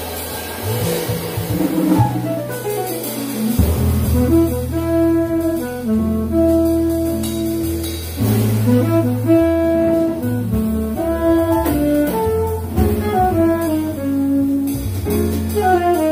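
Live small-group jazz: alto and tenor saxophones playing the tune together over upright bass, piano and drum kit.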